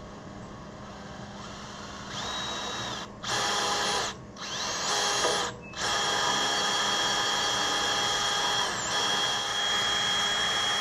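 Electric drill boring out a broken bolt in a threaded hole: the motor starts in a few short bursts, one winding up in pitch, then runs steadily with a high whine for the last five seconds.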